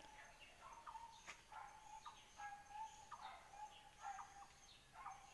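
Faint bird calls, short steady notes repeated again and again over a very quiet background.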